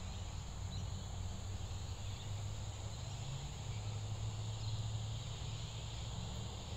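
Evening outdoor ambience of insects, likely crickets, holding a steady high-pitched trill, over a steady low rumble.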